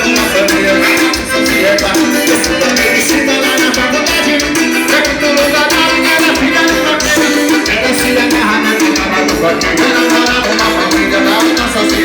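Loud forró music with a steady dance rhythm.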